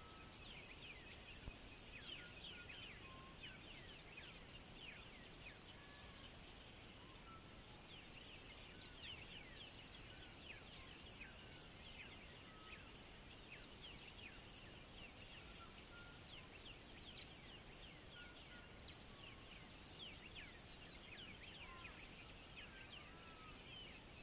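Faint birds chirping outdoors: many quick, short, falling chirps with an occasional brief whistle, over a low steady background hiss.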